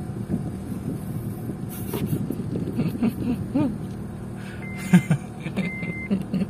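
Vehicle engine running with a steady low hum, a few short calls like children's voices a little before halfway. From about two-thirds in, a single high-pitched beep repeats about once a second, the pattern of a reversing warning beeper.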